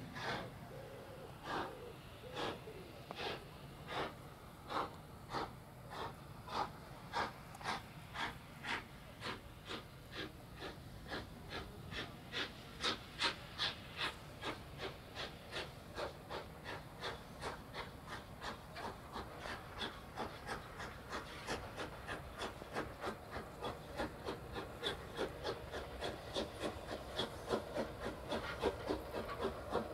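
Steam locomotive working a train, its exhaust chuffing in an even beat that quickens from a little over one beat a second to about three a second as it picks up speed, growing louder as it approaches.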